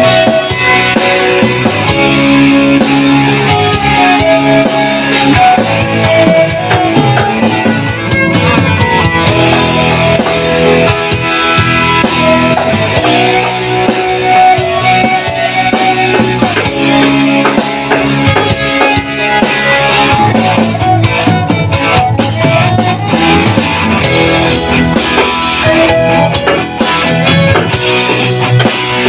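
Violin bowed in a melody of held and moving notes, over recorded backing music with a steady beat.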